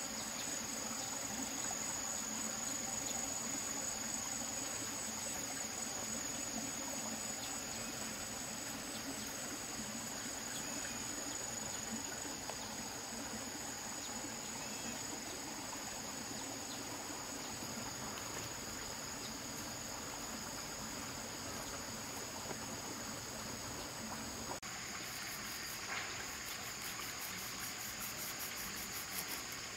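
A steady chorus of insects, a continuous high-pitched buzz, over a soft wash of flowing stream water. About 25 s in the sound changes and a fast, pulsing, very high chirping joins.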